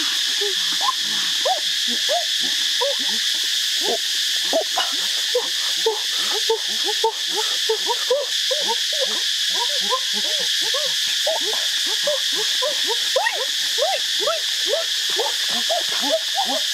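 A dense chorus of short hooting calls, several a second and overlapping, over a steady high-pitched insect drone.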